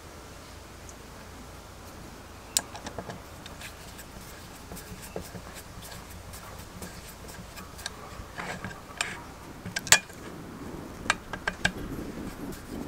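Small sharp clicks and ticks of a screwdriver turning the terminal screws on a GEC 64D telephone extension bell set's terminal strip. They are scattered at first and come more often in the second half.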